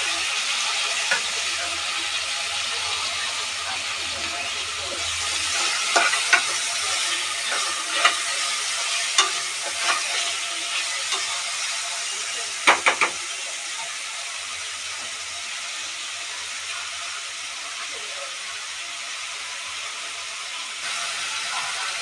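Chopped tomatoes sizzling in hot oil in an aluminium pressure cooker, with a steel spoon knocking and scraping against the pot as they are stirred. The knocks come every second or two, the loudest a quick cluster about thirteen seconds in.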